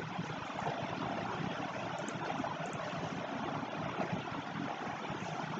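Steady background hiss of the recording microphone, with a few faint clicks about two and a half seconds in.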